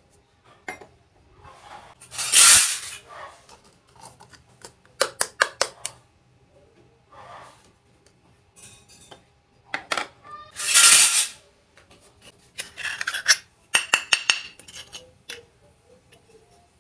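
Miniature steel toy cookware and utensils clinking and tapping as the small pieces are handled, in quick clusters of sharp clicks. Two louder noisy swishes, each about a second long, come a couple of seconds in and again near the middle.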